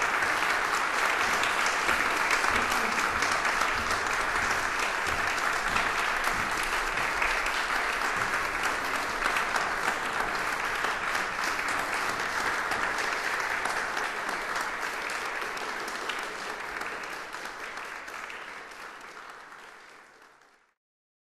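Audience applauding steadily with many hands clapping, the applause fading out near the end until it stops.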